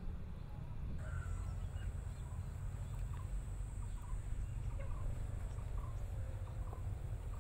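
Outdoor ambience: a steady low rumble, with birds giving short chirping calls about once a second. A thin, steady high whine starts about a second in.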